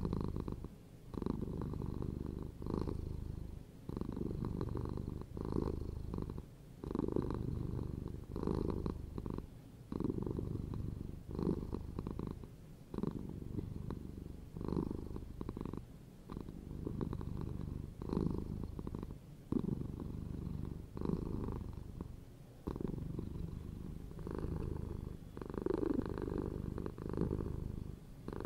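Domestic cats purring close to the microphone, a low continuous rumble that swells and dips with each breath in an even rhythm.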